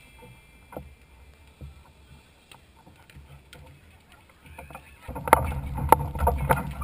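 Wind buffeting the camera microphone as a low rumble that grows much louder about five seconds in, with scattered sharp taps on top.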